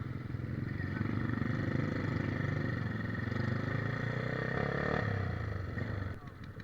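Motorcycle engine running steadily, growing louder through the middle, then dropping off sharply near the end.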